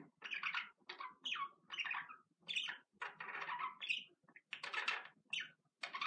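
Budgerigars chattering: a steady run of short, warbling chirps and squawks, several a second, with brief pauses between them.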